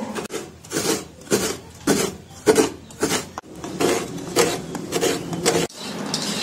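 A fresh coconut half scraped by hand against a serrated coconut scraper blade, a rhythmic rasping at about two strokes a second that stops near the end.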